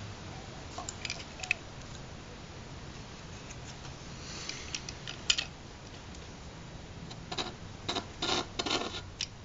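A hand scoring tool scraping along a thin styrene sheet against a wooden straightedge, scoring it so it can be snapped: a few light clicks, then a run of short scraping strokes near the end.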